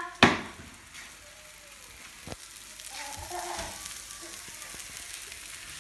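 Pancake batter sizzling steadily in a hot frying pan, with a sharp knock about a quarter of a second in and a smaller tick a couple of seconds later. Faint voices come in around three seconds in.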